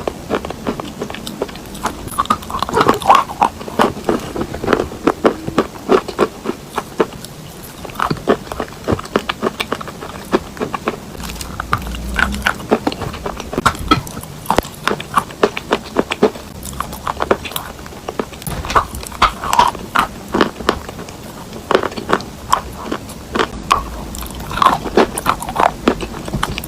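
A person biting and chewing chalk with clay paste: repeated sharp crunches and crackles coming in irregular clusters.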